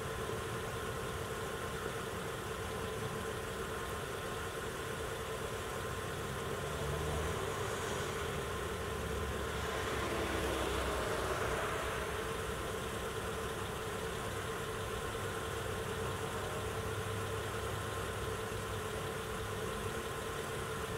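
An engine idling steadily: a constant hum with a few unchanging tones. A brief swell of rustling noise comes about halfway through.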